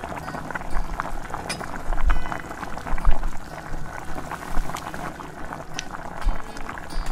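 Chicken stew in coconut milk boiling in a frying pan: a steady bubbling with many small pops.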